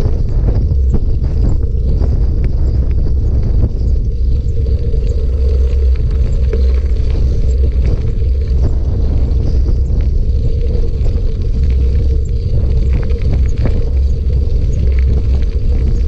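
Bicycle rolling over a gravel and dirt road, heard through a camera mounted on the bike: a steady heavy rumble with many small clicks and rattles.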